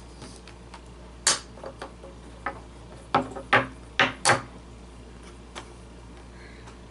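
Tegu magnetic wooden blocks clacking against each other and snapping together as they are handled, about eight sharp clacks with the loudest bunched together around three to four and a half seconds in.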